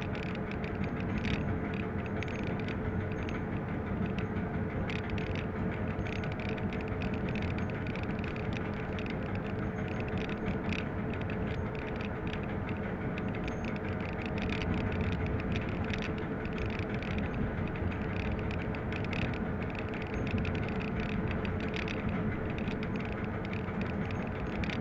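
Cab of a class 750 diesel-electric locomotive hauling a freight train: the diesel engine runs steadily with a constant hum, over wheel and rail noise and scattered clicks and rattles.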